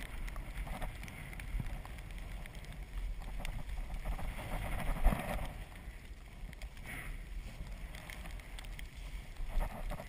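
Recumbent trike's tyres rolling through slush and churned snow, a steady rushing rumble with wind on the microphone. A few louder bursts stand out, the loudest about halfway through.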